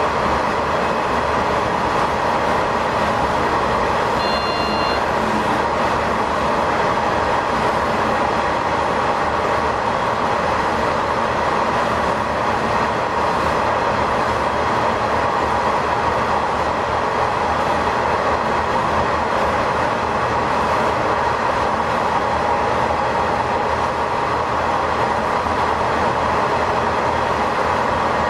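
Sanriku Railway diesel railcar running steadily through a tunnel, heard from the cab: continuous engine and wheel-on-rail noise at an even level, with a short high-pitched beep about four seconds in.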